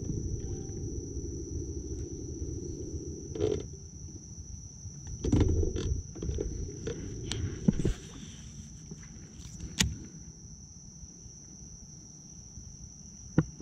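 A steady high-pitched insect drone, with a low rumble that stops about three and a half seconds in and scattered knocks and thumps, the loudest about five and a half seconds in.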